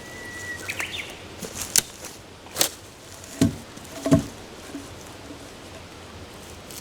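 Four sharp knocks, the last two heavier thuds, after a short whistled bird call near the start.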